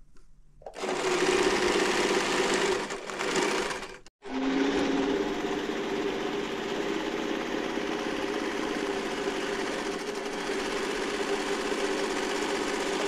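A small electric domestic sewing machine runs, stitching cotton sheet fabric. It starts about a second in, cuts out for a moment about four seconds in, then runs on steadily.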